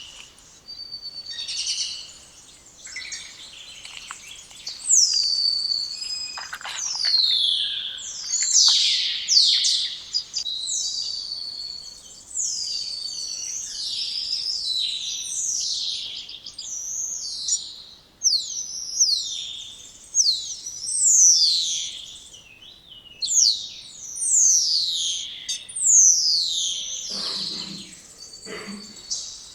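Spotless starling singing: a long run of loud whistles, each sliding down in pitch, following one another about every second, mixed with shorter chattering notes, and a couple of lower sounds near the end.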